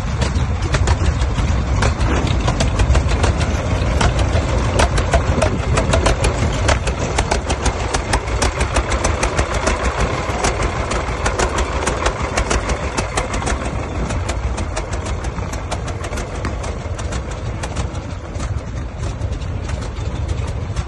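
Vintage Hart-Parr tractor engine running, its exhaust a steady train of popping beats over a low rumble.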